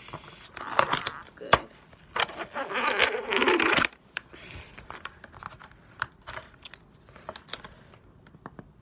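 Clear plastic tub of cut watermelon being opened: the rigid plastic lid and seal strip crinkling, crackling and clicking, loudest about two to four seconds in, then scattered light clicks and taps.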